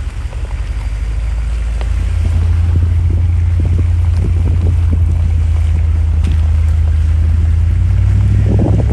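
Low rumble of 4x4 vehicles driving slowly along a rough dirt track, with heavy wind buffeting on the microphone and scattered short knocks.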